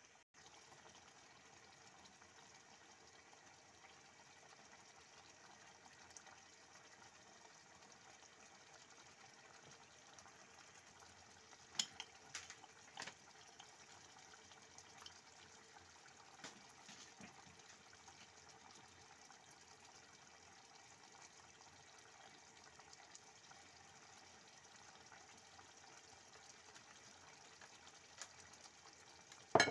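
Tomato, potato and chickpea stew simmering in a frying pan: a faint, steady hiss of bubbling liquid. A few sharp clicks come about twelve seconds in, and a louder click comes at the very end.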